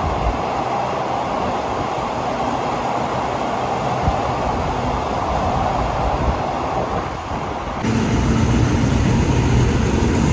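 A train running on the rails, a steady rushing rumble. About eight seconds in it changes abruptly to a louder, deeper hum.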